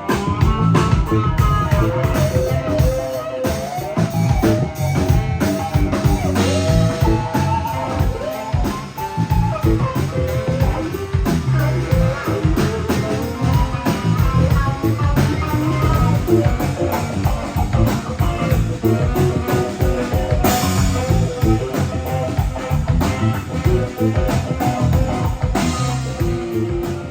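Background music: a guitar-led rock tune with a drum kit keeping a steady beat.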